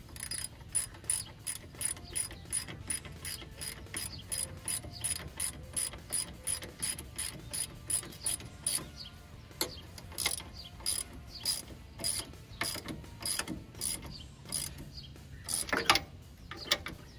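Hand ratchet wrench clicking as the motor mount bolts are run down, at about three to four clicks a second. About halfway the clicking slows and turns irregular, with a louder knock near the end.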